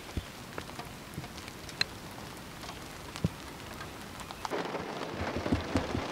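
Scattered raindrops ticking one by one, then, after a cut about four and a half seconds in, a denser, louder patter of rain on a car heard from inside it.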